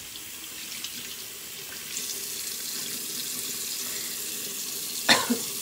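Bathroom sink tap running, the water's rush growing louder about two seconds in, as water runs into the basin. A brief sharp sound stands out near the end.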